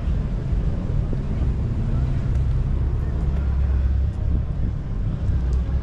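Steady low rumble of car engines and exhausts idling and moving.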